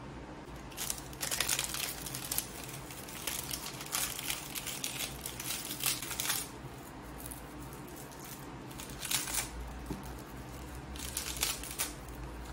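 Crinkling and rustling handling noise, coming in several bursts with short pauses between them.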